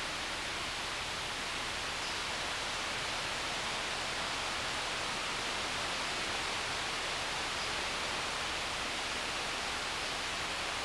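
Steady, even rushing of a mountain river, with no other distinct sounds.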